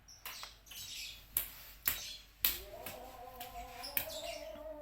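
A handful of sharp, separate clicks, about five, spread over a few seconds: key presses on a laptop keyboard while exiting the BIOS.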